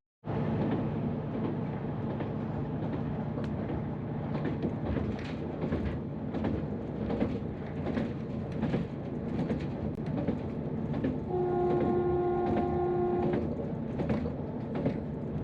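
Train running along the track, a steady rumble with repeated clicks from the rails. About eleven seconds in, its horn sounds once, a held chord lasting about two seconds.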